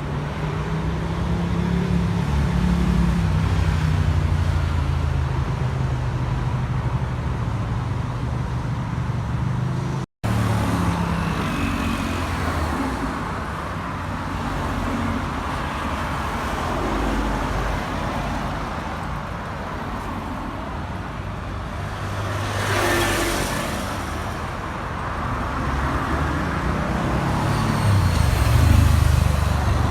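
City street traffic: motor vehicle engines running with a steady low rumble. There is a brief break about ten seconds in, and one vehicle passes close, with added hiss, about two-thirds of the way through.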